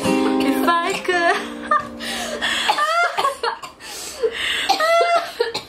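Two women singing a harmony over a strummed acoustic guitar, breaking off about two seconds in into breathy laughter.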